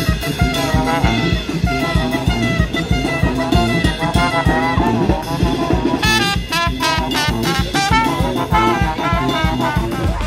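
Street brass band playing: trumpets and a trombone carry the tune over a drum kit keeping a steady beat.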